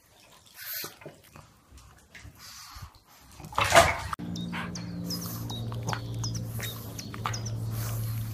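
Pug making small dog noises: scattered soft sounds, then a short loud noisy burst about halfway through. After it comes a string of short high squeaks over a steady low hum.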